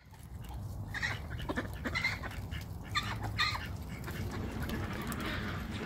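Domestic ducks giving a few short, soft quacks and chattering calls, most of them in the first half, over a steady low rumble.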